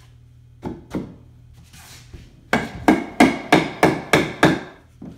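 Hammer striking a short block of 2x10 lumber being fitted in against the floor joists: two light knocks, a brief scrape of wood, then seven quick blows about three a second, and one lighter tap near the end.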